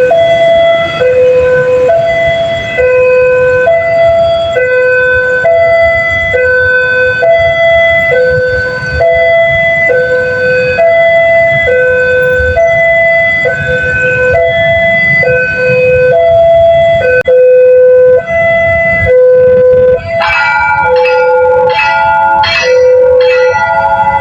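Railway level-crossing siren sounding its alarm: two tones alternating about every three quarters of a second, with a low rumble underneath. About 20 s in, further tones with a rapid flutter join the pattern.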